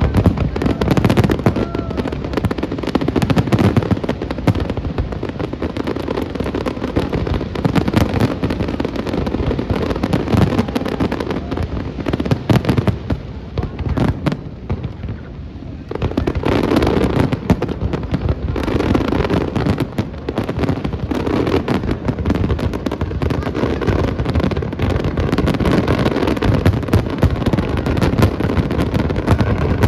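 Aerial fireworks display: a dense, continuous run of bangs and crackles that eases off briefly about halfway through, then picks up again.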